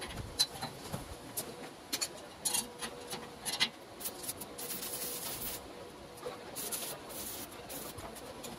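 Scattered light clicks and taps of steel being handled at a welded frame, over a faint steady hum, with two short stretches of hiss near the middle.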